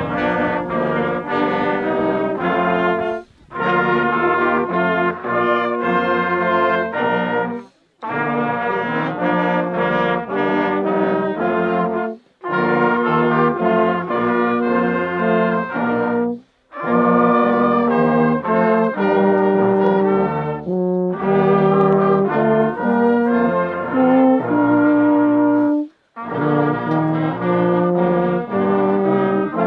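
Brass band of trumpets, baritone horns and tubas playing a slow piece in held chords. The phrases last about four seconds each, with a brief break between them.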